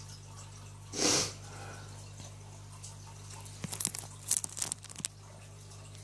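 A man sneezes once, sharply and loudly, about a second in. A run of small irregular clicks and crackles follows in the second half, over a steady low hum.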